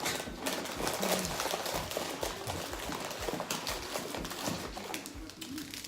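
Crinkling and rustling of snack packaging being handled, a dense run of small crackles.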